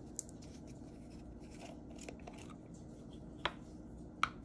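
Small paint jar's screw lid being twisted off and set down: faint rubbing and light clicks, with two sharper ticks about three and a half seconds in and just after four.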